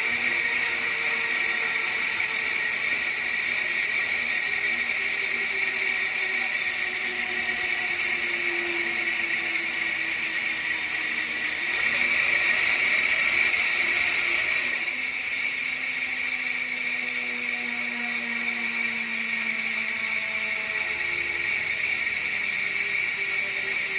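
Speedone Sniper V3 150-tooth ratchet rear hub freewheeling: a steady, fast, high buzz of the ratchet teeth as the wheel spins, getting louder for about two seconds midway.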